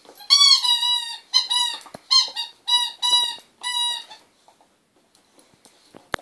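Plush squeaky dog toy squeaking over and over as a Staffordshire bull terrier bites down on it: about six high squeaks in the first four seconds, then quieter chewing and a sharp click near the end.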